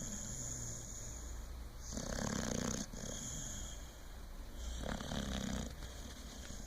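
Snoring in slow, regular breaths: a loud rasping snore about two seconds in and another about five seconds in, with quieter breathing between.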